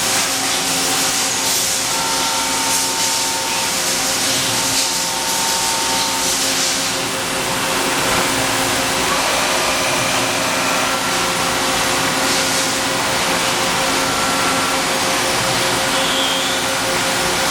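Makino A55 CNC horizontal machining center running under power: a steady mechanical hum with a constant whine, and several bursts of hiss over it.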